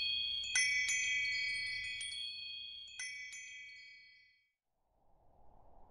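Chimes ringing: several high metallic tones struck a few times over the first three seconds, then dying away. After a moment's quiet, a faint steady hiss begins near the end.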